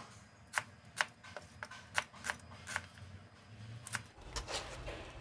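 Chef's knife chopping a shallot on a plastic cutting board: a run of crisp, irregular taps, about two or three a second, thinning out near the end.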